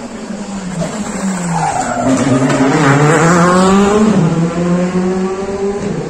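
Rally car engine approaching and passing at speed, its pitch dropping and rising again with gear changes. It is loudest about three seconds in, then fades as the car pulls away.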